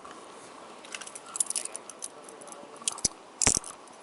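Metal rattling and clicking of handcuffs and an officer's gear as a man is held and searched, with two knocks near the end.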